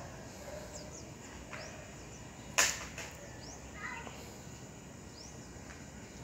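A single sharp click or snap about two and a half seconds in, over low steady background noise, with a few faint short high chirps.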